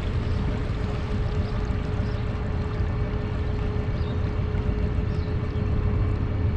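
An engine running steadily, a low rumble with a constant whine held on one pitch above it.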